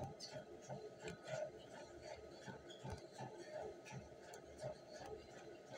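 Footfalls of someone running on a treadmill, an even beat of about three steps a second on the moving belt, with a faint steady high tone under it.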